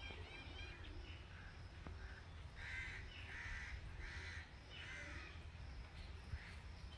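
A crow cawing: a run of four harsh caws in quick succession, starting a little over two seconds in, with a few faint high bird chirps at the start and a steady low rumble underneath.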